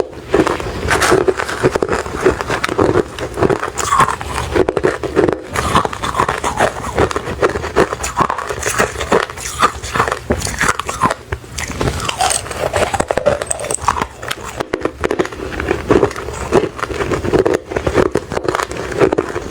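Ice being bitten and chewed close to the microphone: a steady run of loud, irregular crunches.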